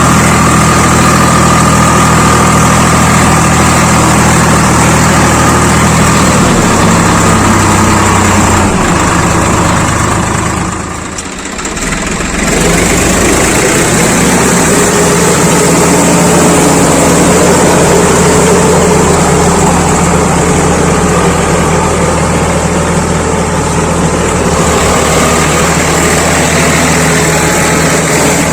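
Swaraj 855 FE tractor's three-cylinder diesel engine running steadily under load with a rotavator. The sound drops briefly about eleven seconds in, then comes back.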